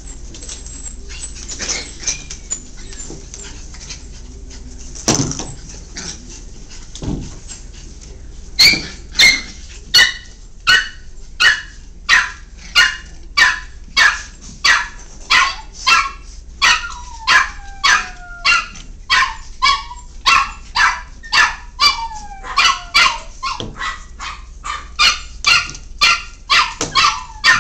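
Miniature Pinscher puppy yapping over and over, a steady run of high-pitched barks about one and a half a second, starting about nine seconds in, with a couple of falling whines mixed in. Before the barking, light scuffling and knocks of the puppies at play.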